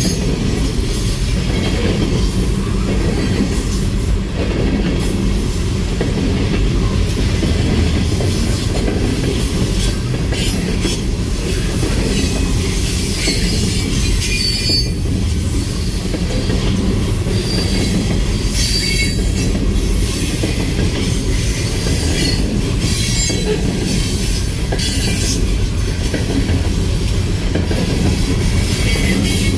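Loaded coal train's hopper cars rolling steadily past a grade crossing: a continuous low rumble of steel wheels on rail, with brief high-pitched screeches now and then.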